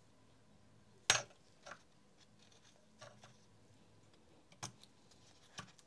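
A few light clicks and taps as the ring gear is fitted into the plastic gear housing of a Makita DTD156 impact driver, the sharpest about a second in.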